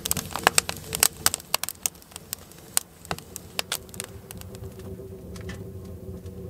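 Freshly lit kindling and fine splits crackling and popping in a tent wood stove as the fire catches. The sharp cracks come thick at first, then thin out over the last couple of seconds, over a low steady rush.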